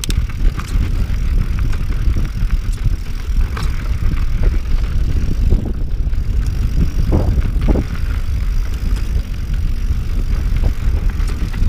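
Mountain bike rolling down rocky singletrack: a steady low rumble of wind buffeting the microphone over tyre noise, with frequent sharp clicks and knocks from the bike rattling over rocks, and two brief squeaks a little past halfway.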